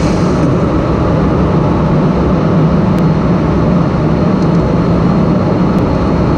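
Steady, loud cabin noise of airflow and jet engines inside a KC-135 Stratotanker's boom operator pod in flight, with two faint ticks about three and six seconds in.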